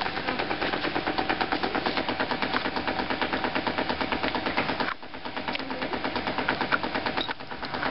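Suction pool cleaner working in the water: a rapid, even mechanical ticking of about eight or nine beats a second with a faint steady tone under it. It dips briefly about five seconds in.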